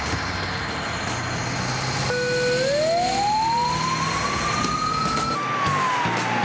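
Fire engine siren starting about two seconds in with a slow wail, rising in pitch for about three seconds and then falling, over the diesel engines of Dennis fire engines pulling out of the station.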